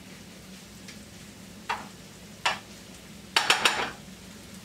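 Utensil clinking and scraping against a skillet on the stove, in two single clicks and then a quick cluster of several, over a faint steady hum.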